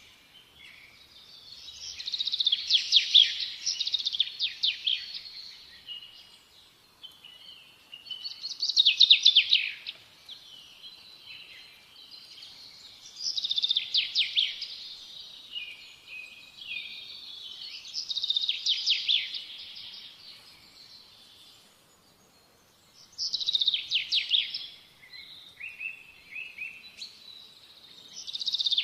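A small songbird singing: bursts of rapid high chirping notes about every five seconds, with softer twittering between the bursts.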